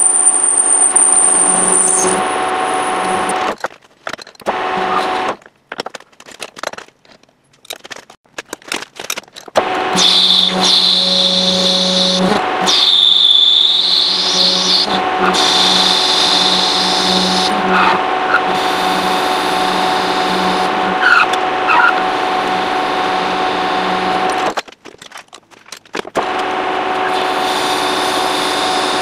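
Metal lathe turning down a steel Tesla Model S half-shaft: the machine runs with a steady hum of held tones and a high whine from the cut. It drops to near quiet twice, for several seconds about a third of the way in and briefly near the end.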